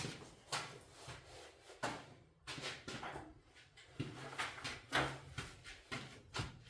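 Irregular knocks and short scraping clatter of objects being handled, about a dozen, with the loudest knock about five seconds in.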